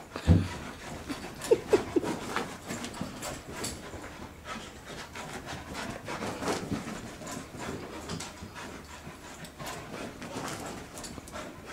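Wheaten Terrier panting during play, with a heavy thump near the start and two short, sharp sounds about a second and a half in.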